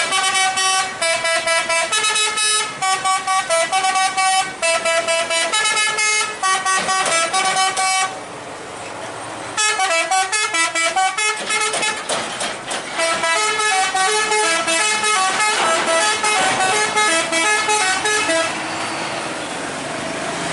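A truck's roof-mounted multi-trumpet musical air horns (an Indonesian telolet horn) playing a tune of quick, changing-pitch notes, with a short break about eight seconds in, and stopping near the end, leaving the sound of passing traffic.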